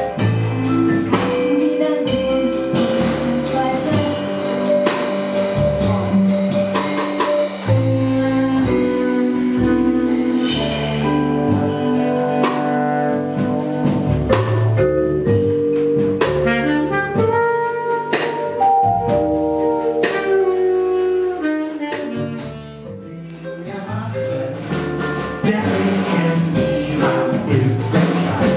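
Small jazz band playing live: trombone and bass clarinet carry melodic lines over vibraphone, double bass and drums. The band drops quieter for a moment about three-quarters of the way through, then picks up again.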